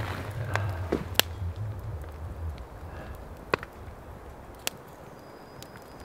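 Twigs burning in a small metal twig stove, giving off scattered sharp crackles and pops, about five in all, with a low wind rumble that fades after the first couple of seconds.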